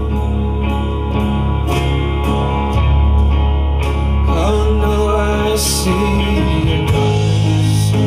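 A song with singing and guitar played through a Frazier Super Texan speaker, its original alnico Atlas compression driver on a wooden horn. It is picked up by a camera's built-in microphones, which flatten the dynamics and lose the low bass.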